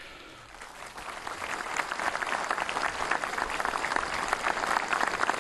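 A large crowd applauding, the clapping building up over the first two seconds and then holding steady.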